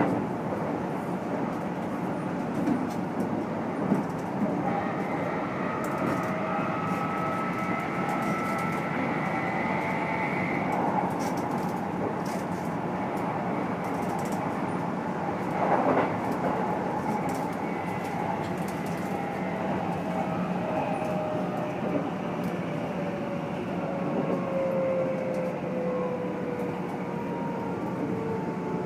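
Running sound inside a Keikyu N1000 stainless-steel EMU motor car: steady wheel-and-rail rumble with the whine of its MB-5121-A traction motors and Toyo IGBT VVVF inverter. This set is known for unusually loud, odd motor noise. A faint whine sounds early on, a single knock comes about halfway, and in the second half a whine falls slowly in pitch as the train slows.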